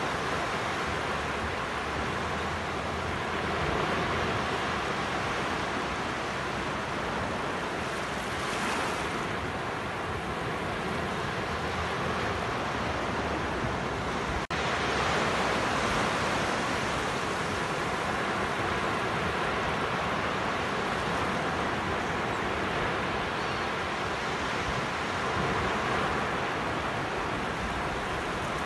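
Surf breaking and washing up a sandy beach: a steady rushing hiss that swells and eases every several seconds, with a split-second break about halfway through.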